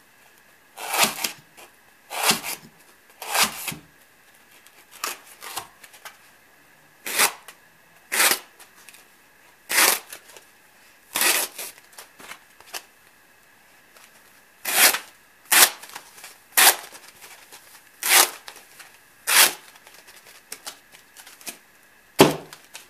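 Dan Keffeler competition cutter, a heavy chopper knife, slicing through a foam pool noodle in about fifteen quick, sharp strokes, roughly one a second, with short pauses between runs.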